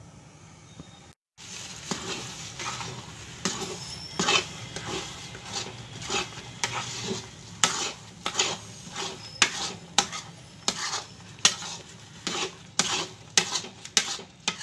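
Metal spatula scraping and stirring a thick mixture of grated fresh coconut and condensed milk in a metal kadhai. The scrapes come about twice a second and start about a second and a half in.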